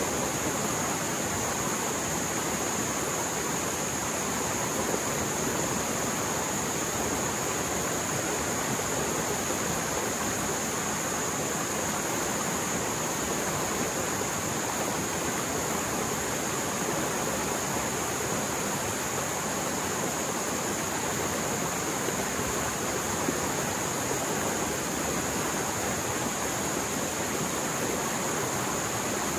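Mountain stream in spate after heavy rain, flowing fast and roaring: a steady, unbroken rush of water with no pauses or changes.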